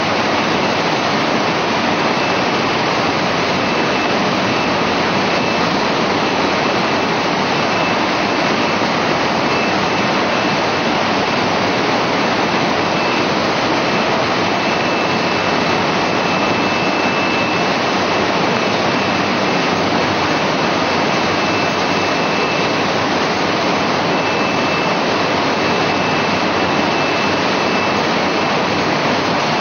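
Steady loud din of poultry-processing machinery and running water: an even rushing noise with a faint high whine in it.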